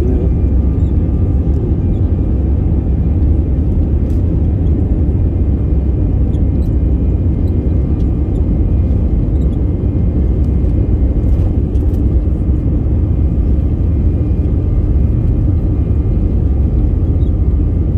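Steady low rumble of a jet airliner's engines and airframe heard from inside the passenger cabin as the aircraft moves on the ground, with a faint steady whine above it.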